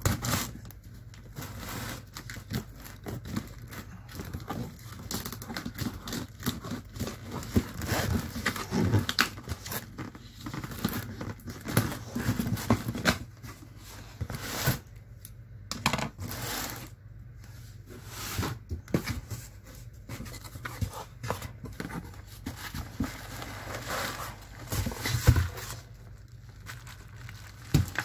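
A cardboard shipping box being torn open by hand, with packing tape and cardboard flaps ripping and crinkling in irregular bursts and a few sharper, louder rips. Near the end, plastic bubble wrap crinkles as it is pulled out.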